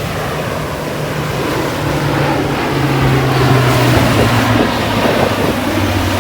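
Ocean surf washing in, with wind buffeting the microphone and a low hum that steps down in pitch across the few seconds.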